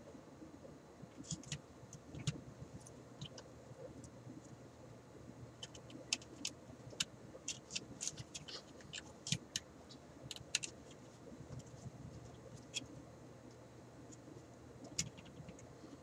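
Scattered light clicks and small metallic rattles as clip leads are handled and clipped onto the metal chassis parts of a car radio, bonding them together.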